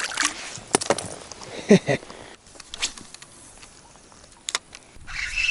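Water splashing and a few sharp knocks and clicks as a small chub is handled at the side of an inflatable boat, the loudest knock about two seconds in. About five seconds in, a spinning reel starts winding with a steady whirr.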